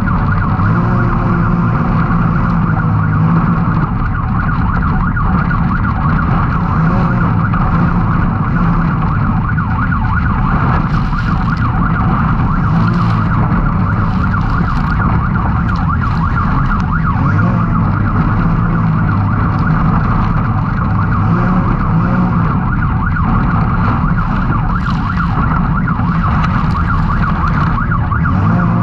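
Can-Am X3 side-by-side engine running hard under race load, its note rising and falling with throttle, with a steady high whine over it.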